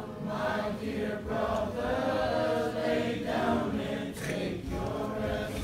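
A large choir of young men and women singing together, holding long notes in harmony with short breaks between phrases.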